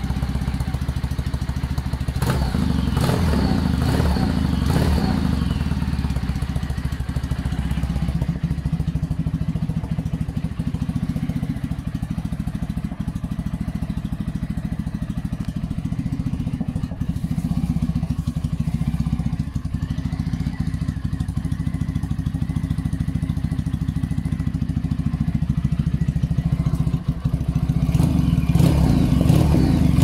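Kawasaki W800's air-cooled parallel-twin engine idling through stainless headers and reverse-cone megaphone slip-on mufflers with no baffles fitted. It is revved briefly a few seconds in and again near the end.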